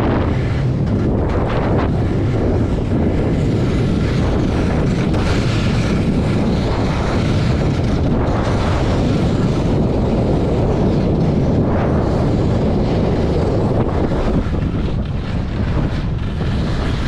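Wind buffeting the action camera's microphone during fast snowkiting on skis: a loud, steady low rumble, with the hiss of skis sliding over snow rising and falling on top.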